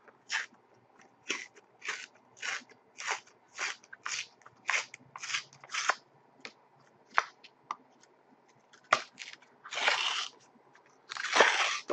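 A 2010-11 Panini Zenith Dare to Tear trading card being torn apart by hand. Its cardboard layers rip in a series of short tears about two a second, then two longer rips near the end, opening the card to get at the card sealed inside.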